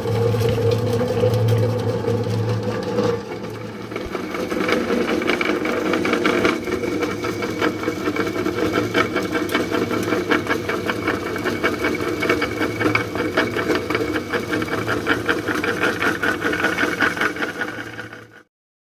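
Small electric feed machine running as it processes a worm-casting feed mix: a steady hum with a fast, even rattle. The tone shifts about three seconds in, and the sound cuts off abruptly near the end.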